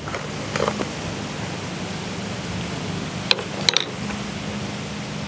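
Steady background hiss with a low hum, and a few light clicks of a metal knife and fork being handled at a wooden cutting board about three and a half seconds in.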